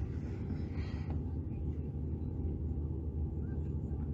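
A car's engine running, heard from inside the cabin as a steady low hum.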